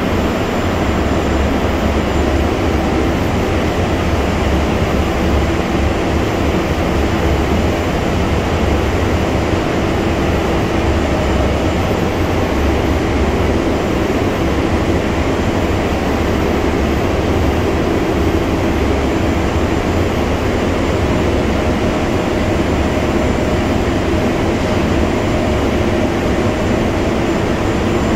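Steady, loud din of factory machinery, with a deep hum underneath and a few faint steady tones over it.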